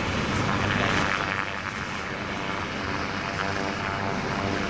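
AgustaWestland HH-139A (AW139) twin-turboshaft helicopter in flight: steady rotor and turbine noise. It dips slightly in loudness midway and swells again near the end.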